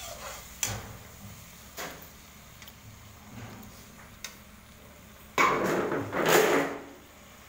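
A metal skimmer stirring gravy in a kadhai, tapping against the pan a few times. About five seconds in comes a louder scraping clatter lasting about a second and a half as salt is spooned into the pan.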